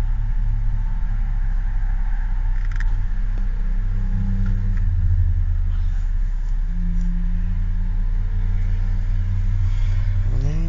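Steady low rumble of a car heard from inside the cabin, its engine and drivetrain running at an even level.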